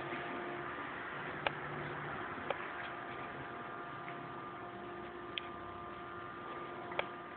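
Homebuilt CNC router with stepper-motor drive running: a steady machine hum with a few held tones, broken by four short sharp clicks.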